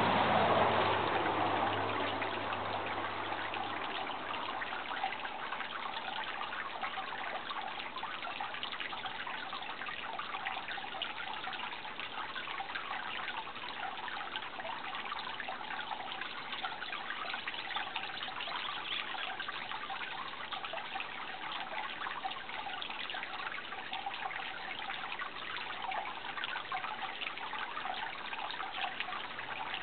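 Steady trickling and splashing of running water, as from a small stream. A louder rush with a low hum fades out over the first couple of seconds.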